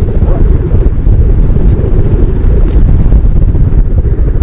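Strong wind buffeting the microphone: a loud, constant low rumble that rises and falls quickly and covers everything else.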